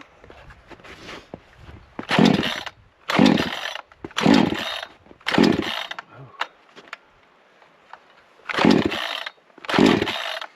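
Gas chainsaw being pull-started on its first start: the recoil starter cord is yanked six times, each pull a short burst of the engine cranking over. There are four pulls about a second apart, a pause of about three seconds, then two more. The engine does not run on between pulls.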